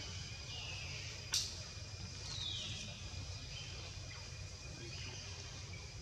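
High animal calls falling in pitch, three times, with a single sharp click about a second in, over a steady low rumble.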